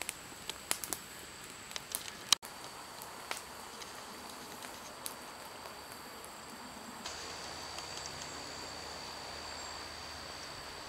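Wood campfire crackling with sharp pops, the loudest about two and a half seconds in. Then a steady faint outdoor background, which a thin, steady high-pitched hum joins about seven seconds in.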